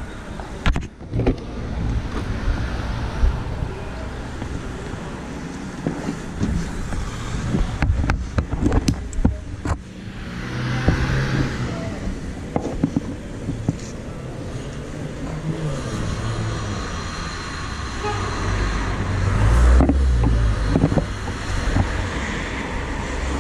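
Street traffic going by, a continuous low rumble that swells near the end, with scattered knocks and rustles from handling close to the microphone.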